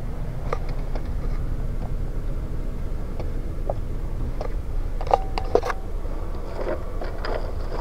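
Steady low background rumble with a few faint clicks and knocks scattered through it.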